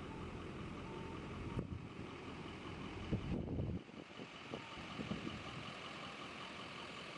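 A pickup truck's engine idling faintly, with a few light clicks and knocks in the second half.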